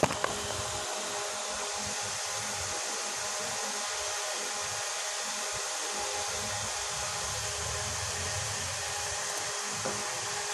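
Steady rushing, fan-like noise that stays even throughout, with two sharp clicks right at the start.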